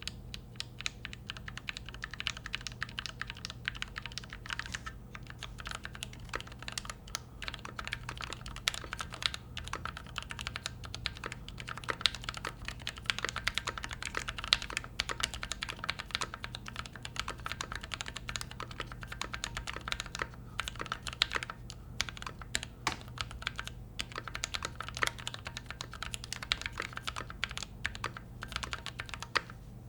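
Continuous fast typing on a custom mechanical keyboard built on a metal-cased Keychron Q3 with hand-lubed switches and stabilizers: a dense stream of key clicks with a few brief pauses.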